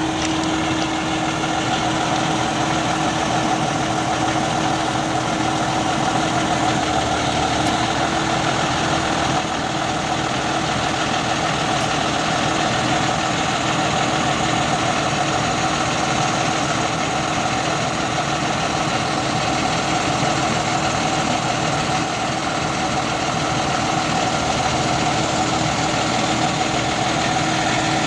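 Railway track maintenance machine's engine running steadily, with a constant drone in two tones.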